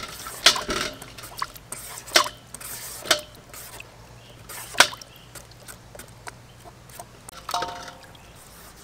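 A metal peeler scraping the skin off a green papaya in short, sharp strokes, a second or two apart, with water dripping into a steel basin. A brief ringing sound comes near the end.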